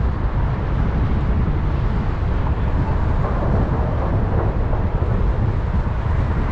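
Car driving along a city street: a steady low rumble of tyre and road noise with wind on the microphone.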